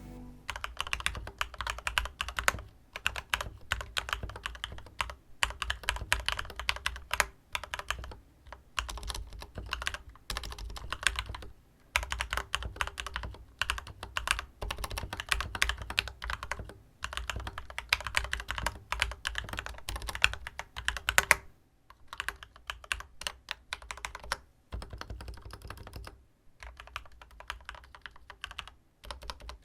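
Typing on an Akko Moonsgeek MG75W mechanical keyboard fitted with Gateron Milky Yellow switches, a thocky sound test of the newly installed switches. Fast runs of keystrokes are broken by short pauses every few seconds.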